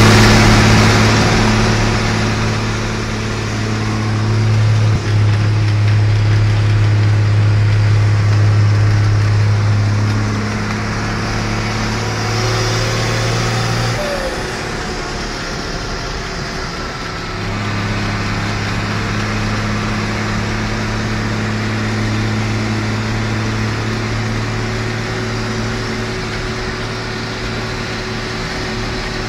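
IHC 1255 tractor's diesel engine running at a steady road speed: a strong, even low drone over road and wind noise, heard from the driver's seat. About halfway through, an oncoming car passes, and the engine drone drops away for about three seconds before returning.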